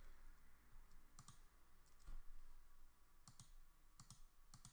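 A few faint clicks of a computer mouse, some in quick pairs, spread through near silence.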